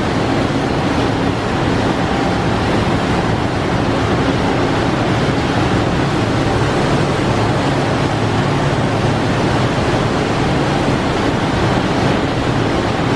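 Manroland Roland 708 eight-colour sheetfed offset press running and printing: a loud, steady mechanical rush with a low hum underneath.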